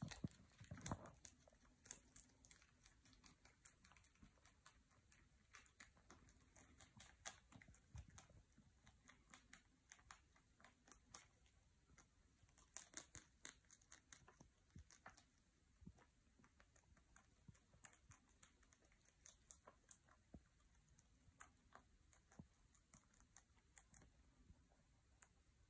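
Faint, irregular crunching and clicking of a rabbit chewing leafy twigs, several small crunches a second with a few louder clusters.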